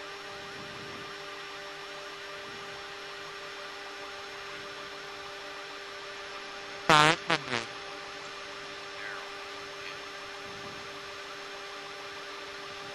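Steady cockpit drone of a twin-engine aircraft on approach, a hum of several steady engine tones. About seven seconds in comes one brief loud sound that slides down in pitch, then two shorter ones.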